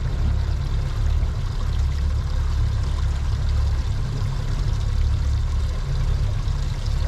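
Steady water noise and an uneven low rumble aboard a small fishing boat, as of water washing against the hull with wind on the microphone.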